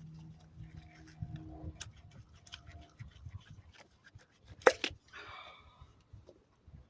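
An ignition coil being worked and twisted in its spark plug well, with small plastic clicks and rattles, then one loud sharp snap a little past halfway as it pops loose, followed by a short breathy noise.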